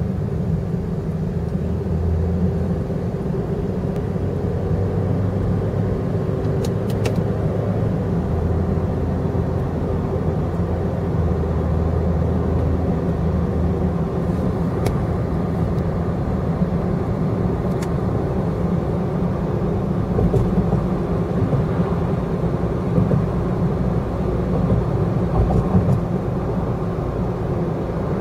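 Steady road and engine noise of a moving car, heard from inside the cabin, with a low drone that drops away about halfway through.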